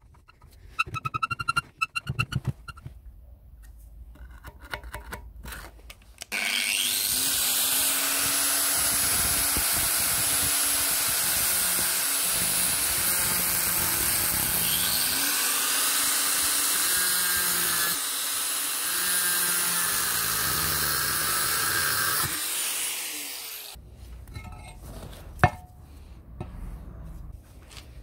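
Angle grinder running with its disc against the rusty iron body of an old bone mill, in one steady run of about seventeen seconds that starts about six seconds in. Light metallic clicks of handling come before it, and scattered knocks after it, with one sharp knock near the end.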